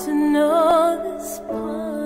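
Background music: a slow, gentle song with held keyboard chords and a voice sustaining a wavering note about half a second in.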